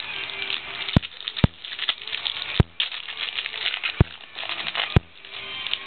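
Trading cards rustling and crinkling as they are handled and flipped through, with five sharp clicks scattered through it.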